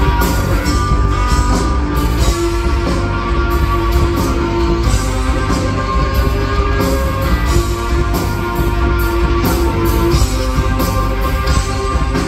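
Live rock band playing loud, driving blues-rock with no vocals: electric guitar, bass and drums, with a saxophone holding long notes over the groove.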